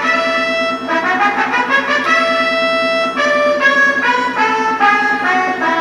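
Roland D-50 synthesizer brass patch playing a melody of held notes and chords.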